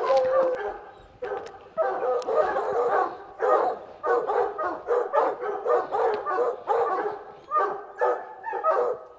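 Hunting hounds barking treed, a steady run of bays about two a second with a short lull about a second in: the dogs have a mountain lion up a tree.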